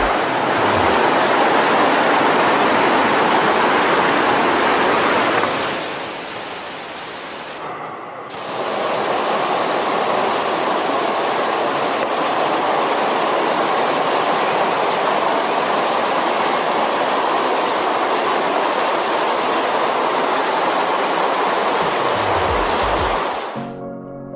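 Water from a small spring-fed waterfall rushing and splashing close to the microphone, a steady loud hiss. It drops for a couple of seconds about six seconds in, then comes back at full strength, and cuts off just before the end.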